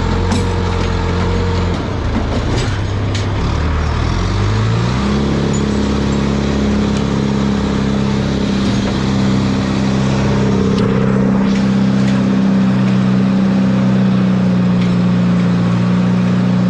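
An engine running, then speeding up about four to five seconds in and holding steady at the higher speed.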